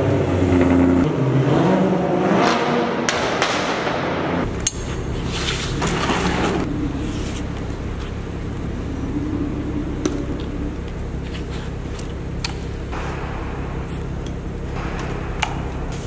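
Car engine revving briefly with rising and falling pitch, then settling to a steady idle, with a few sharp clicks and knocks.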